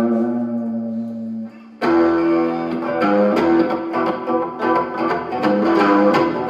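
Electric guitar played through a 1960s Supro Super: a chord rings out and is cut off about a second and a half in. Then more chords and picked notes follow.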